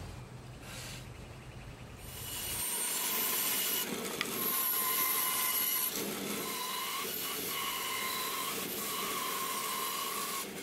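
Small bandsaw cutting through a wooden board: a steady sawing whir with a faint high whine, coming in about two seconds in and holding to the end, with brief dips as the feed changes.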